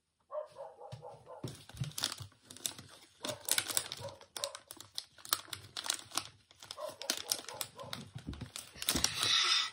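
Plastic sweet wrapper crinkling and crackling in irregular bursts as it is handled, loudest near the end.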